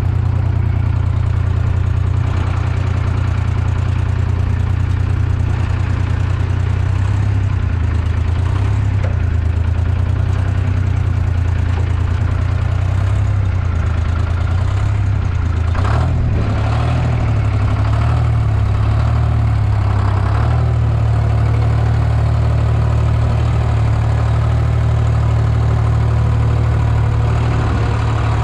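Old farm tractor engine running, its speed wavering up and down through the middle stretch before settling back to a steady idle, with one sharp knock about halfway through.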